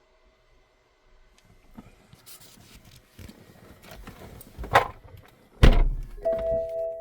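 Handling noises in a car: a sharp click, then a heavy thunk like a car door shutting, followed by a steady ringing chime of several held tones.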